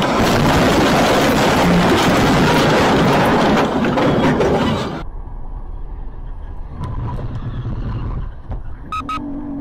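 Dashcam audio of a crash as a lorry overturns in a cloud of dust: loud, dense rushing and rumbling noise. About five seconds in it cuts off sharply to the quieter road noise of a car on a freeway, with a brief steady tone near the end.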